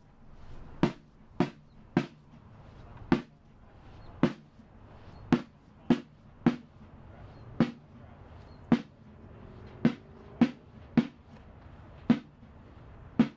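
Sparse drum strikes on a steady pulse of about two beats a second, with many beats left out. Each hit is sharp and rings briefly, over a faint background.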